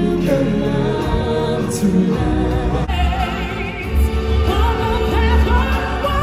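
Amplified stage-show song: a lead vocalist singing with wide vibrato over a backing track, with deep bass coming in about two seconds in.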